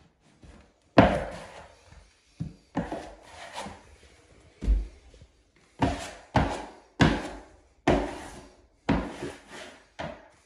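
Green plastic wallpaper smoother swept hard across freshly hung wallpaper, pressing it into the joint with the baseboard: about a dozen short scraping strokes, roughly one a second, with one low thump near the middle.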